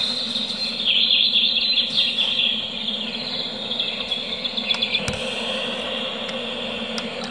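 Recorded nature sounds from the Joie Meet Sansa 2-in-1 baby swing: bird chirps and insect calls, loudest about one to two seconds in and fainter after.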